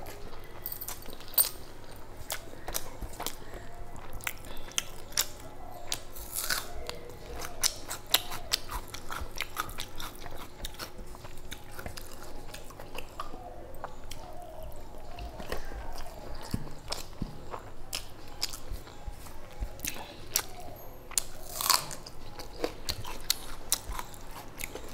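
Close-up eating sounds: chewing and wet mouth clicks and smacks, with fingers working rice and curry on a metal plate. Many irregular small clicks, a few louder.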